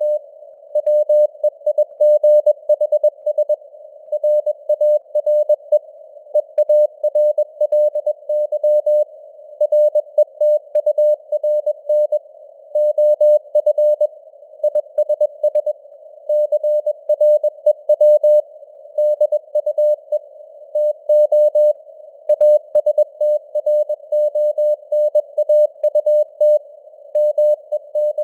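Morse code at 21 words per minute: a single-pitched tone keyed on and off in short dits and longer dahs, with gaps between letters and words. Behind it a narrow hiss of simulated radio receiver noise, centred on the tone's pitch, fills the gaps, as in listening to CW on a ham radio.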